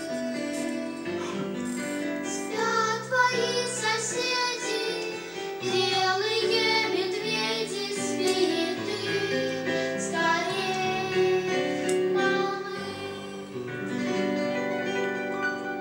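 A song sung by a child's voice over instrumental accompaniment.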